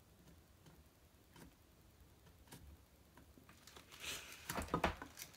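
Hands working on pickguard wiring and tools: a few faint ticks, then a flurry of small clicks and rustling in the last second and a half.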